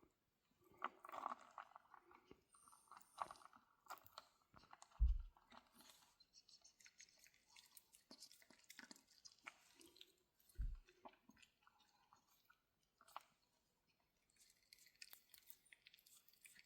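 Faint crunchy chewing of food in scattered short bursts, with two soft low thumps partway through.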